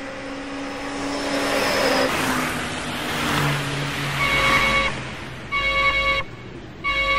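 A rushing noise with a steady low hum, then, from a little after the halfway point, three loud beeps, each about half a second long and a little over a second apart.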